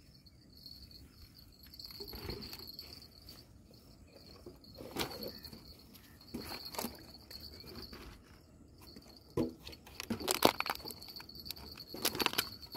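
Insects chirping in a steady high-pitched drone that comes and goes, with scattered sharp clicks and knocks, the loudest about ten seconds in.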